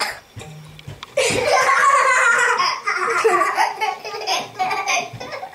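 A young girl laughing, breaking into loud, sustained belly laughter about a second in.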